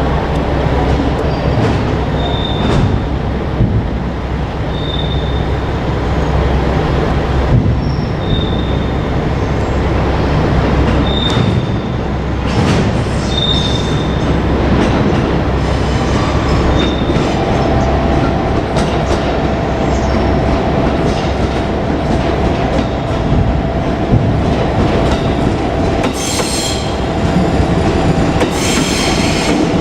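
JR Kyushu 787 series electric train rolling along the track with a steady rumble and clicking over the rail joints. Its wheels give short high squeals every few seconds, a steady hum sets in about halfway through, and stronger squealing comes near the end.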